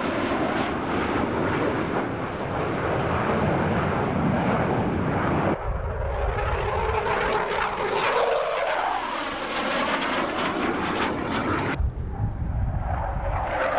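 Jet noise from Sukhoi Su-22 fighter-bombers flying past, loud and continuous. From about seven seconds in it has a sweeping, phasing tone as a jet passes, and the sound changes abruptly twice, about five and a half seconds in and again near the end.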